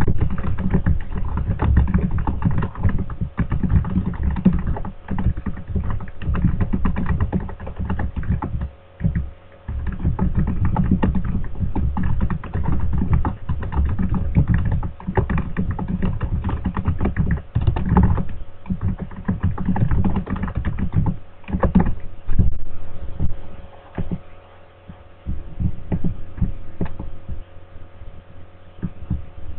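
Fast typing on a computer keyboard: a dense run of keystroke clicks with heavy low thuds, pausing briefly about nine seconds in and becoming sparser and quieter near the end.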